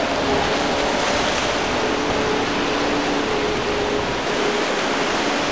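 Steady rush of surf and choppy water, with the faint drone of a small boat's outboard motor underneath.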